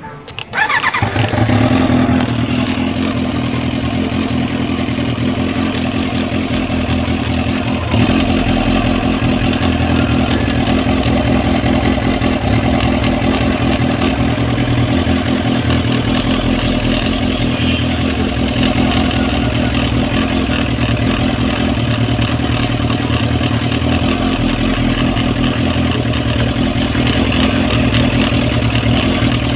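Kawasaki ZX-7R's carbureted inline-four catches about half a second in and settles into a steady, even idle. It keeps running while the ignition wiring is handled to find an intermittent fault that makes the engine cut out.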